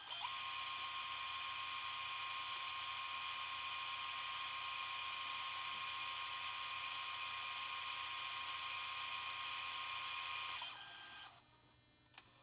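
Tape machine in rewind: a steady mechanical whirring whine with a high steady tone that runs for about ten seconds, then winds down and stops. A faint click follows near the end.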